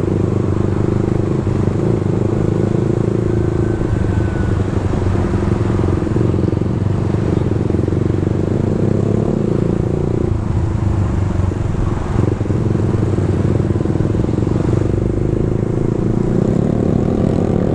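Suzuki GSX-R150's single-cylinder engine running steadily while riding, its pitch climbing near the end as the revs rise.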